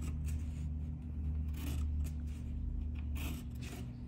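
Pencil scratching short strokes on paper along a plastic ruler, several separate marks, over a steady low hum.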